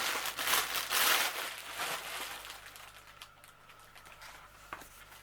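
Plastic packaging crinkling as it is handled, in rustling bursts for about two seconds, then dying away to a few faint clicks.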